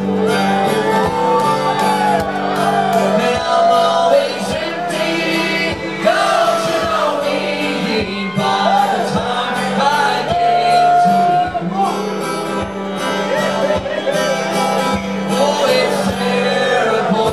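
Fiddle playing a sliding melody over steadily strummed acoustic guitar, with one long held fiddle note about ten seconds in.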